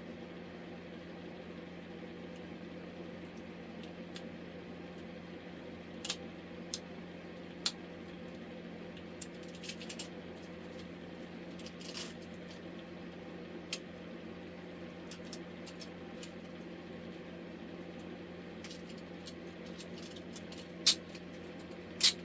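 Scattered small metallic clicks and clinks of handcuffs being handled and picked, with two louder clacks near the end, over a steady hum.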